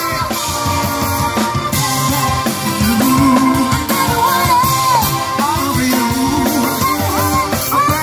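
Upbeat rock music with a singing voice over guitar and band.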